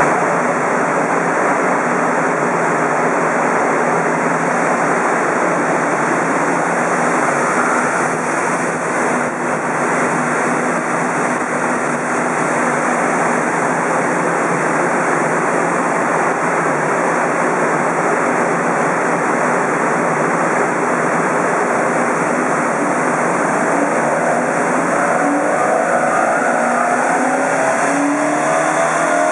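Toyota 4A-GE 20V Blacktop 1.6-litre four-cylinder running on a chassis dyno at steady revs under a loud, steady rushing noise. Its revs start to climb about six seconds before the end as the power run begins.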